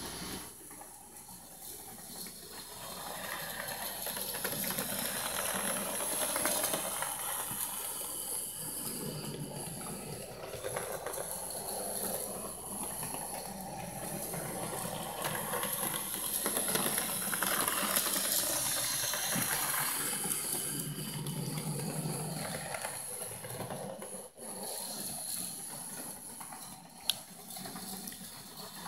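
Model switcher locomotive running on track: the hiss and rattle of its small electric motor and wheels on the rails, growing louder and fainter as it goes round the loop. One sharp click near the end.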